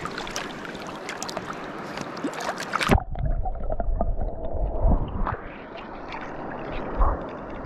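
River water splashing and sloshing against a camera held at the surface. About three seconds in, the sound suddenly turns to a muffled low rumble and gurgle as the camera goes under water.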